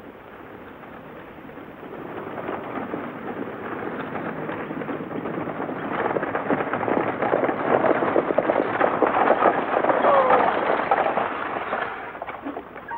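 A horse-drawn stagecoach at a gallop coming up and passing by: a dense clatter of hoofbeats and wheel rattle that grows louder, is loudest around nine to eleven seconds in, then falls away near the end.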